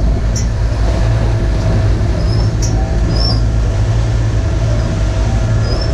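Steady low rumble and drone aboard a sailing catamaran under way through choppy waves, with a few brief faint high squeaks.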